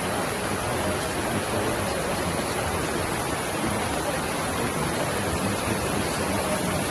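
Steady rushing of floodwater pouring through an overflowing storm gully.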